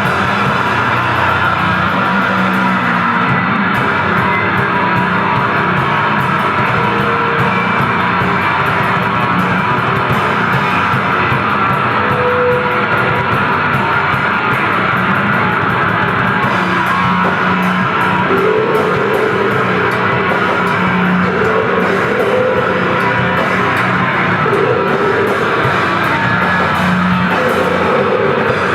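Grindcore band playing: heavily distorted electric guitar and bass over fast, dense drumming, loud and unbroken.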